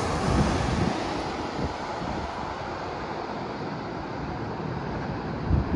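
Jet airliner's engine noise fading away just after it passes low overhead on final approach, settling into a steady distant rush. Wind buffets the microphone near the end.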